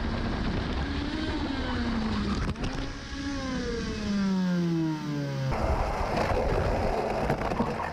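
Racing kart engine heard from onboard, its pitch falling steadily for about two and a half seconds as the revs drop, with a sharp knock shortly before. A little past halfway the sound changes abruptly to a second onboard kart recording: engine and rushing wind noise with a few knocks.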